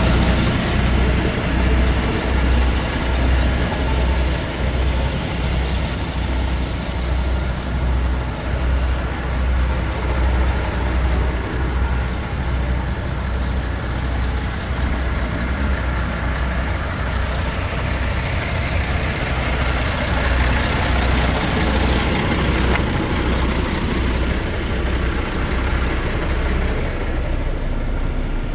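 MAN 19.361 tractor unit's diesel engine idling, a steady low pulsing.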